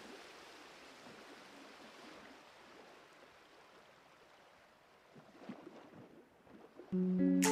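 A faint, even rushing noise, slowly fading, with a few soft knocks after about five seconds. Near the end, plucked guitar music starts, much louder.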